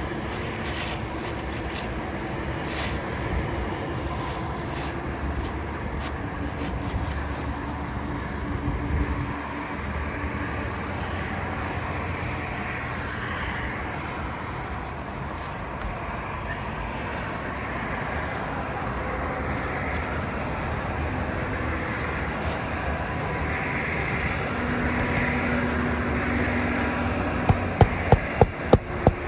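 Steady outdoor background noise like distant road traffic. Near the end it gives way to a run of sharp, evenly spaced hammer strikes, about two to three a second, nailing an asphalt roof shingle back in place.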